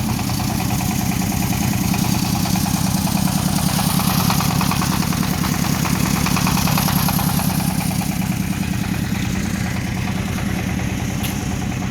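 Concrete mixing machine's engine running steadily, with a fast, even pulse.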